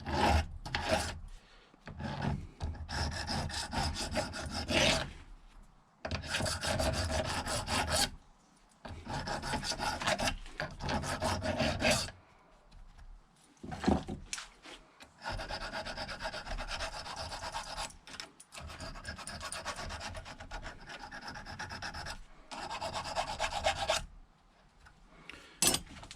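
A metal file rasping back and forth on a freshly soldered clutch-cable nipple, dressing off excess solder, in runs of quick strokes a few seconds long with short pauses between.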